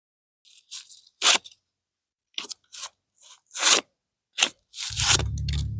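Old axe blade rubbed over a wetted cinderblock in about seven short, separate gritty scraping strokes. A low rumble joins the last stroke near the end.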